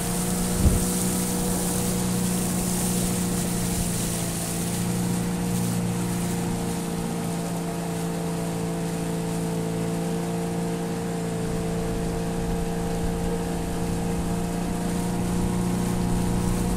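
A boat motor running steadily at one constant pitch, with a single short knock about a second in.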